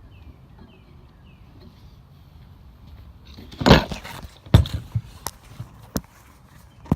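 A loud clatter about halfway through, then a run of sharp knocks and clicks about two-thirds of a second apart as a clamp is worked tight to hold a bench grinder down on the bench.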